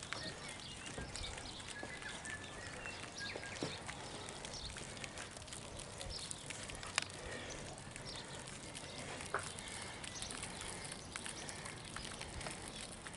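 Outdoor garden ambience: scattered bird chirps over a steady hiss, with one sharp click about seven seconds in.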